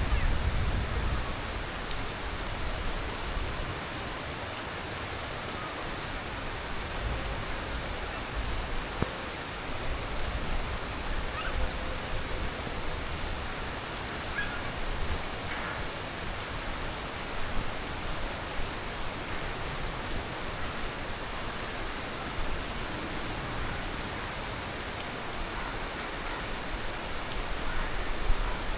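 Heavy tropical monsoon rain falling steadily, an even hiss of rain on leaves and surfaces, with a low rumble swelling at the start and again near the end.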